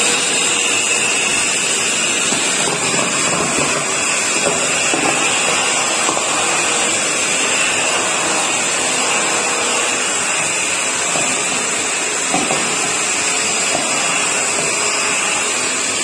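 A red corded 1000-watt handheld vacuum cleaner running steadily, its high motor whine over a rush of air as it sucks up scraps of paper.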